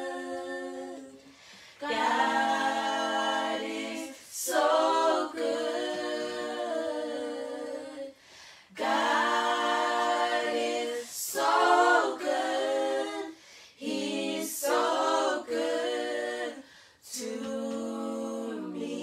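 Voices singing a worship song a cappella, in long held phrases with short breaks between them.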